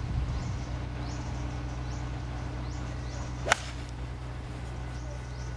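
A golf iron swung at a teed ball about three and a half seconds in: one quick swish of the club ending in the sharp click of contact.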